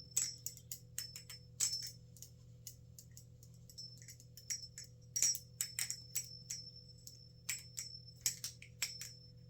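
A metal balisong trainer (a TheOne Chab clone) being flipped: quick, irregular metallic clicks and clacks, several a second, as the handles swing and knock together, some with a light ring.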